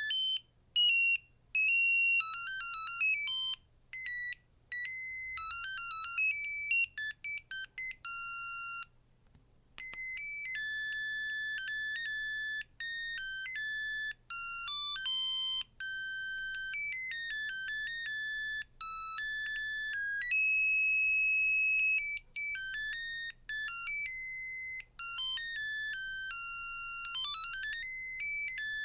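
Samsung SGH-R225 mobile phone playing its built-in ringtones: electronic beeping melodies stepping quickly from note to note, with a short pause about nine seconds in. Later there is a long held high note and, near the end, a quick rising run of notes.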